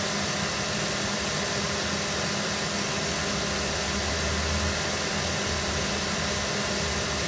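Steady rushing noise at an even level, with a low hum under it.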